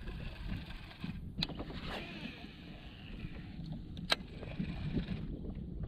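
Baitcasting reel being cranked to retrieve a crankbait, over a steady low rumble. Two sharp clicks come about a second and a half in and again about four seconds in.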